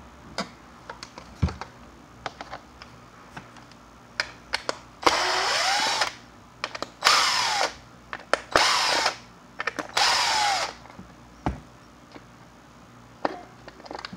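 Cordless drill/driver run in four short bursts, its motor pitch rising as it spins up and falling as it lets off, backing screws out of a plastic decoy housing. Light clicks and knocks of handling come between the bursts.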